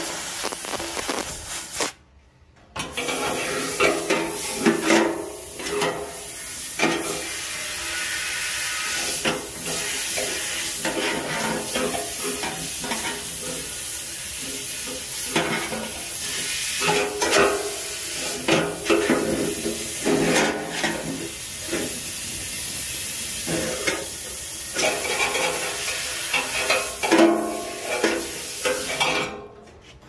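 Compressed air hissing from a long-nozzled blow gun as it is blown through a generator's fuel tank outlet to flush out old, contaminated fuel, with an uneven spluttering crackle in the hiss. The air cuts off briefly about two seconds in and again just before the end.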